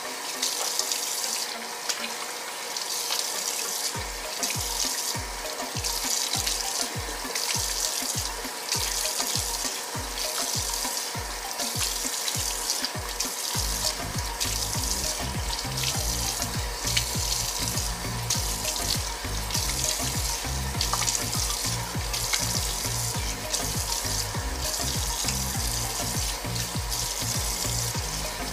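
Warm water running from a bathroom tap into the sink while a face is rinsed in it. Background music with a bass beat comes in about four seconds in and fills out about halfway through.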